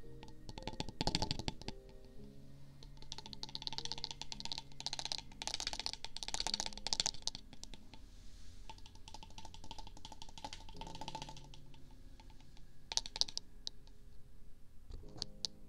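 Rapid clicky tapping and scratching at the ears of a binaural microphone, coming in several bursts, over soft background music with long held low notes.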